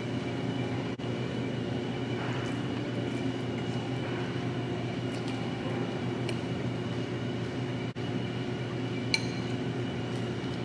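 Steady hum of a restaurant dining room, with a few light clinks of a metal fork against a bowl, the clearest near the end.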